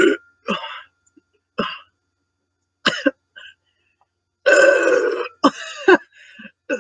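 A woman burping repeatedly: a run of short burps, then one long loud burp about four and a half seconds in, followed by a few shorter ones.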